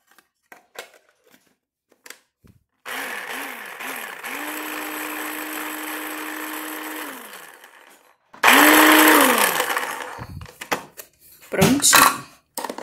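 Electric mini food chopper (Multilaser) chopping garlic and bell pepper: the motor gives three quick pulses, then runs steadily for about three seconds and winds down, then runs again in a louder burst of about a second and a half. Plastic clicks and clatter from the chopper's lid and bowl being handled near the end.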